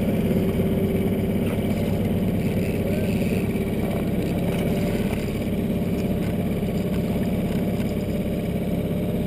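Boat engine running steadily at an even speed.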